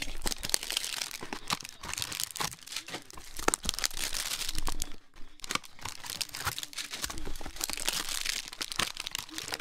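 Hanger boxes of trading cards being torn open and their packaging crinkled by hand: continuous rustling and tearing with many small sharp clicks, coming in denser clusters.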